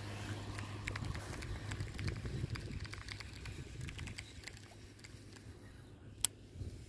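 Light clicking and rustling from handling a baitcasting rod and reel while working a rubber frog lure, over a low rumble of wind on the microphone. The clicks are frequent at first and thin out, with one sharp click about six seconds in.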